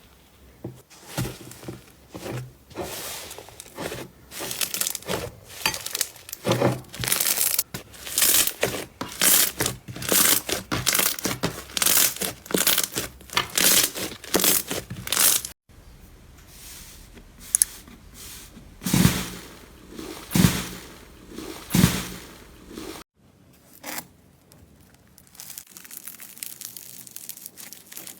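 Slime being squeezed and stretched by hand, making dense crackling and crinkling pops. The sound changes abruptly twice, at about 15 seconds and at about 23 seconds: after the first change come fewer, louder squishy pops, and after the second a quieter fine crackle.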